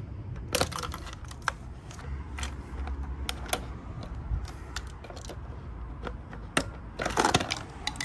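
Scattered sharp clicks and small knocks of a hose-removal tool and plastic vacuum-line connectors being worked off the nipples of a Mercedes W140/C140 PSE central-locking vacuum pump, with a denser clatter near the end.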